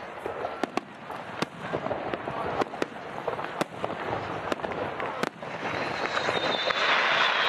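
Aerial fireworks bursting: a scattered series of sharp bangs and cracks over a steady crackling hiss. Near the end a louder rushing noise builds, with a high whistling tone in it.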